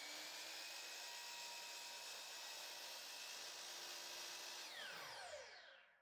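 Miter saw motor running at full speed with a steady whine. About five seconds in the power is cut and the blade winds down, its whine falling in pitch as it fades out.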